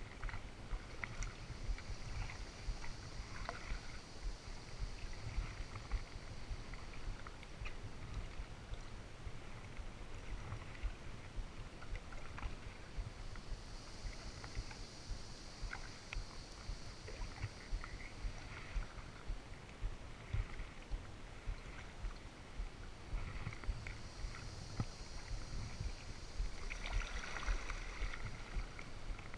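Kayak paddle strokes dipping and dripping in calm water, small splashes and knocks over a steady low rumble. A soft high hiss swells twice, around the middle and near the end.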